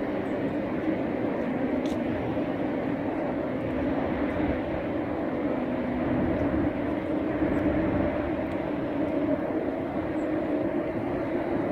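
Wind buffeting the microphone over a steady, low, droning rumble.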